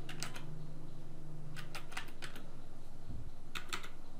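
Computer keyboard keys typed in short irregular runs: a few clicks at the start, several more around the middle and a quick cluster near the end.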